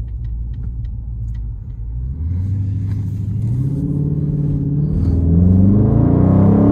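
2020 Dodge Scat Pack's 6.4-litre HEMI V8 heard from inside the cabin: a steady low rumble, then from about two seconds in the engine pulls under acceleration, its note rising steadily and growing louder.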